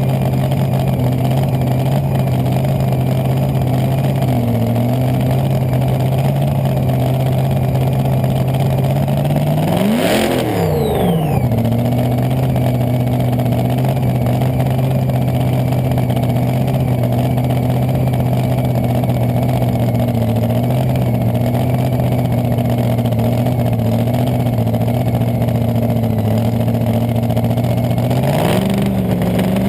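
Top Alcohol dragster's V8 engine running at a steady idle. It revs up and drops back once about ten seconds in, and the revs rise again near the end.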